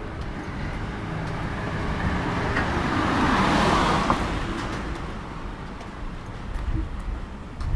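A car passing close by: its tyre and engine noise swells to a peak about halfway through, then fades away, over a low street rumble.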